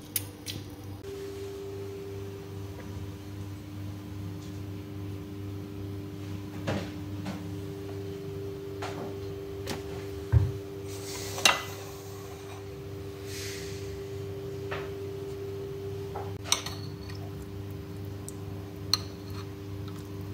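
Kitchen handling sounds: a few short clinks and knocks of dishes and utensils on the counter over a steady low hum with two held tones, the sharpest knocks a little after ten and eleven seconds in.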